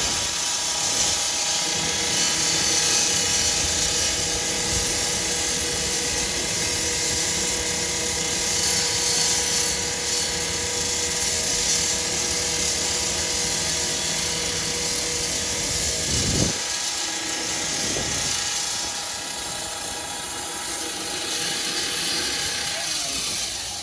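Power saw cutting through the heavy metal top of a garbage truck's body: a steady, high grinding hiss over a whining motor tone. It stops right at the end.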